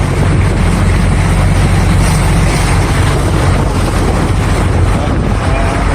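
Boat engine running steadily with a low hum, under a noisy rush of wind on the microphone.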